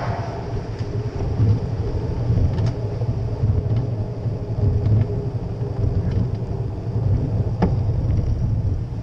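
Bicycle riding noise through a GoPro Hero4 Session's microphone: a steady low rumble of wind on the microphone and tyres rolling over paving stones, with a few light clicks and rattles from the bike, one sharper click near the end.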